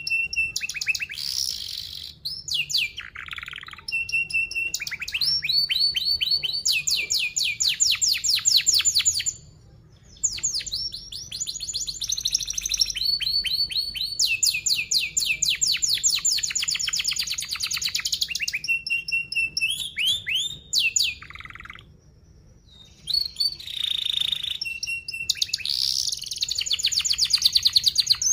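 Domestic canary singing a long, fast song of chirps and rolling trills of rapidly repeated notes. It breaks off briefly twice, about ten seconds in and about twenty-two seconds in.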